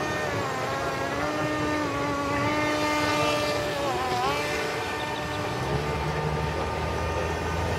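Small battery-shaped drone's motors and propellers buzzing in flight: a steady whine of stacked tones whose pitch dips and swings back up about four seconds in.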